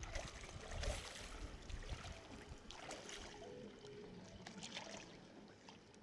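Calm shallow sea water lapping and splashing softly, with a few brief splashes, about three seconds in and again near the end.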